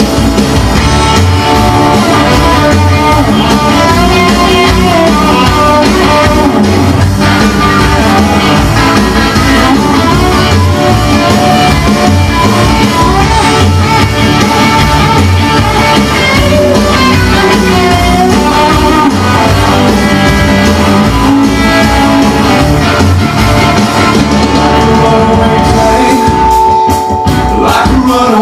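Rock and roll music with guitar, played as a recording; a long held note sounds near the end.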